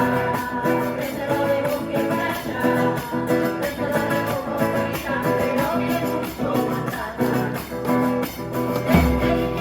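Music with singing, guitar and a steady percussion beat.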